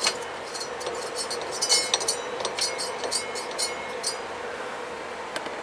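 Quick metallic clicks and clinks from the old lawn-tractor transmission's shift lever and gears being worked by hand while hunting for second gear, over a faint steady hum. The clinks come thick for the first few seconds, then thin out.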